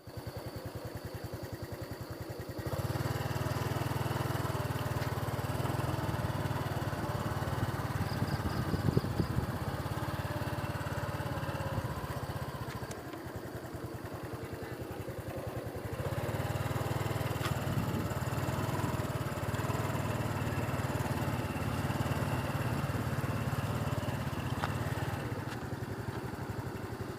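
A small engine running steadily with a fast, even firing pulse. It gets louder about three seconds in, eases off for a few seconds in the middle, and picks up again about two-thirds of the way through.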